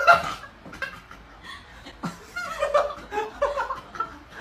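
A person laughing in short, broken chuckles.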